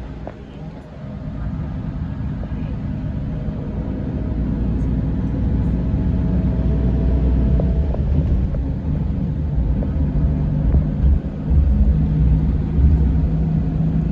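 Scania K410 coach's 13-litre inline-six diesel running: a low rumble that builds over the first few seconds and then holds steady, with a faint whine above it.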